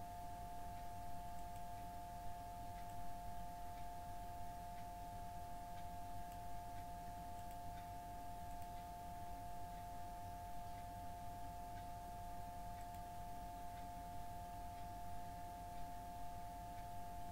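A steady background whine of two held tones close together in pitch, over a low hum, unchanged throughout.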